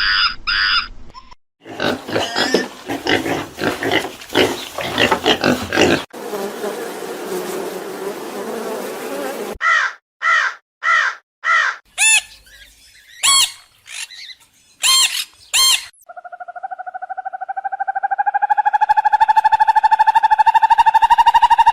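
A run of different animal and bird calls, one clip after another: bursts of repeated calls, a dense stretch of overlapping calls, a noisy stretch, a series of separate short calls, and then one long drawn-out call that rises slightly in pitch.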